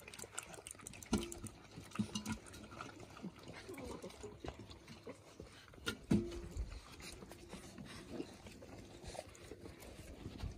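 Wirehaired Pointing Griffon puppies lapping water from a steel pan and milling about, with a short pitched puppy cry about a second in and another around six seconds.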